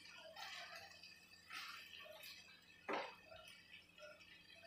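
Faint scrapes and soft rustling of a spatula stirring cooked rice and soya chunks in a metal pan, with one sharper scrape about three seconds in.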